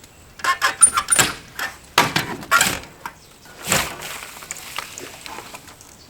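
A quick irregular run of clicks and knocks, then one louder knock a little past halfway.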